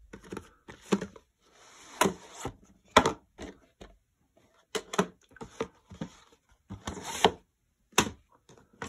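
VHS cassette and its plastic clamshell case being handled on a wooden table: a string of sharp plastic clicks and knocks as the case is opened and the tape taken out and set down, with a brief scrape about two seconds in.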